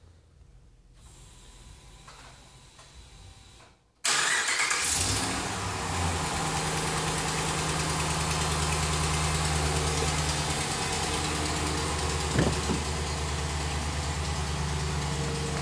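Dodge Ram's Hemi V8 starting on a remote start about four seconds in. It flares briefly, then settles into a steady idle.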